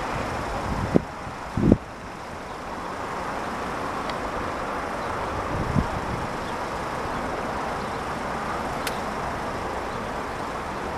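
Steady road traffic noise, with a few low thumps of wind on the microphone in the first two seconds.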